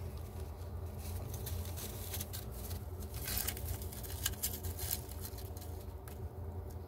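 Soft, irregular rustling and crackling of dry grass and leaves as a young squirrel moves and digs about in its nest, over a steady low hum.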